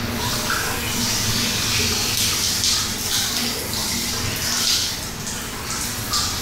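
Handheld shower head spraying water onto skin and a towel. The hiss of the spray swells and fades as the head is moved.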